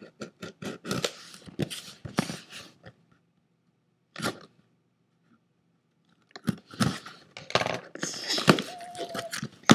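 Scissors slicing along the packing tape of a cardboard box in quick scraping cuts, then a pause broken by a single click. Near the end comes louder tearing and rustling as the tape gives and the cardboard flaps are pulled open.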